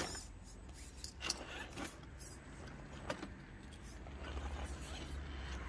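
Small electric RC crawler truck's motor and gearbox whirring at low speed as it climbs a kerb, getting a little louder about four seconds in, with a few sharp clicks and knocks from the tyres and chassis.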